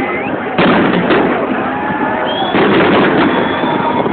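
Fireworks display: shells bursting in a run of sharp bangs over continuous crackling, with the strongest bangs about half a second in and again past the middle.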